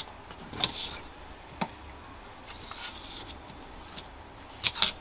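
Scattered light clicks and scrapes of a model-railway stock rail being slid into the chairs of a P4 turnout kit's sleeper base, with two sharper clicks near the end.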